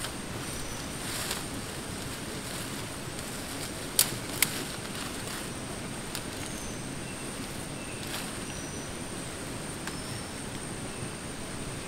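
Dry branches being handled and broken, with two sharp snaps about four seconds in and the rustle of dead leaves. Underneath is steady rainforest ambience with an even, high-pitched insect drone and a few faint chirps.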